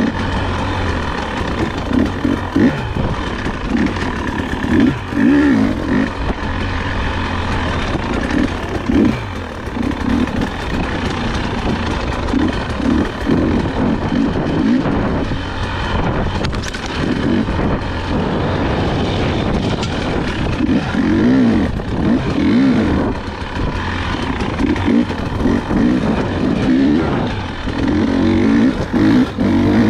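Husqvarna dirt bike engine under hard riding, its pitch rising and falling every second or two with constant throttle changes.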